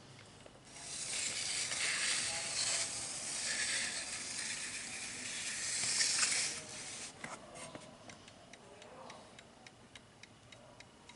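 French MF wall clock movement ticking regularly. A steady hiss covers the ticking from about half a second in to about six and a half seconds in.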